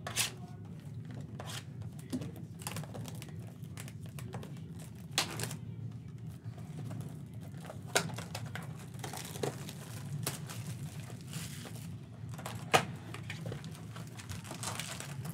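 Plastic shrink wrap crinkling and tearing as it is stripped off a sealed box of Donruss basketball cards, with several sharp crackles along the way. Near the end, the cardboard lid of the box is opened.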